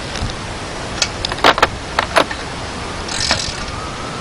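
Several sharp, irregular metal clicks and clinks of a 14 mm wrench working a loose bolt on a dirt bike, over a steady background rush.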